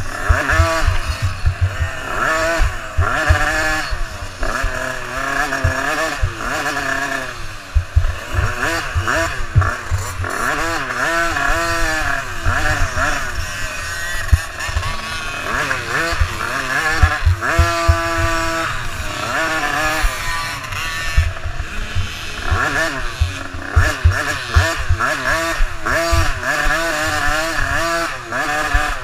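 Small youth dirt-bike engine revving up and down as the rider opens and closes the throttle, with one short stretch held at steady revs. It is heard close from an onboard camera, under constant low thumps and wind buffeting from the rough track.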